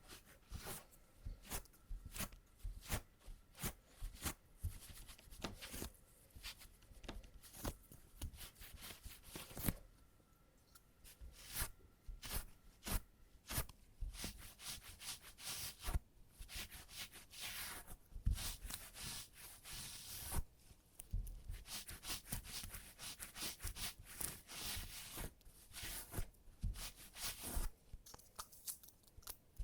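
Sticky tape crackling as it is pressed onto and peeled off trouser fabric to pull out embedded cat hair, in rapid irregular crackles with a short lull about ten seconds in.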